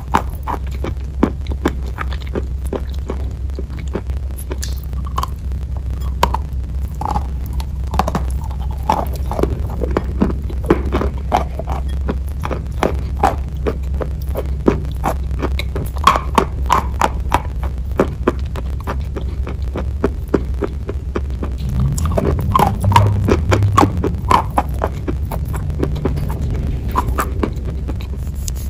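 Close-miked crunching and chewing of a hard, chalky white block: dense irregular crackles and snaps, with a steady low hum underneath.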